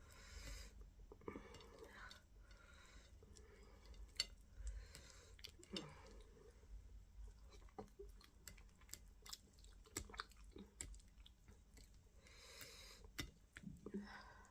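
Close-up chewing and lip smacking while eating fufu with slimy okra stew: a run of small wet mouth clicks and smacks, with a sharper click about four seconds in.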